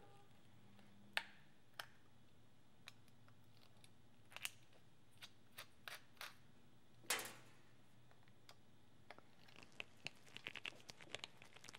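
Faint clicks and scrapes of a small screwdriver working the screws that hold the motor in a portable 8-track player, against near silence, with a run of quick small ticks near the end. The screws are stuck with oxidation and blue Loctite.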